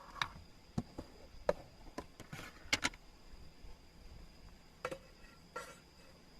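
Night ambience: a steady, faint high-pitched insect trill, with a dozen or so scattered light clicks and knocks.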